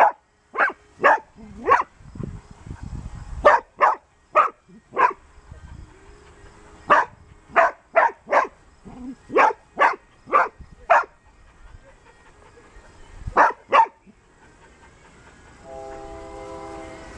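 Dog barking in short, sharp barks, in quick runs of two to five with pauses between. Near the end a steady, horn-like tone is held for about a second and a half.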